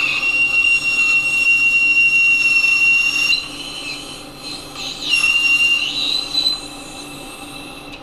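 Carbide lathe insert squealing as it takes a facing cut on a GM wheel hub: a loud, high-pitched whistle-like tone that jumps higher about three seconds in, drops back around five seconds, and fades near the end. The squeal goes with inserts that are chipping away in this cut.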